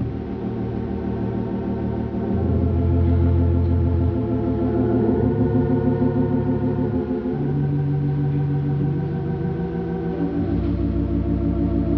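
Organ playing slow, sustained chords with a fast wavering in the tone; the bass note changes every two or three seconds.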